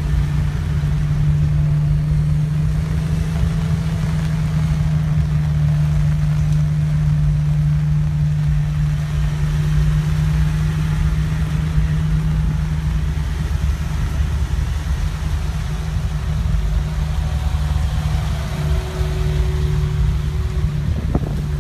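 Deep, steady bass drone from a car audio system's subwoofers, one low note held for long stretches over a rumbling lower bass.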